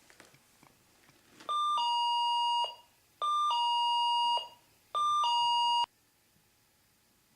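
Motion-sensor alarm chiming three times, each a two-tone electronic ding-dong, a short higher note stepping down to a longer lower one; the third chime is cut shorter. The chime signals that something has crossed the sensor's path.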